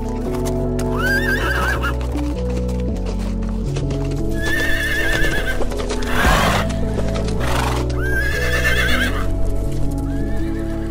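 Zebra calls: four warbling, whinny-like calls with a quavering pitch, spaced a few seconds apart. Two short noisy bursts come between the second and third. Background music plays steadily under them.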